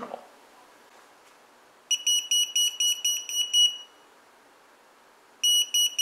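Non-contact voltage tester beeping rapidly in a high-pitched tone, in two spells: about two seconds in for about two seconds, and again near the end. The beeping signals voltage: the wire it is held to is live, the hot line from the service panel.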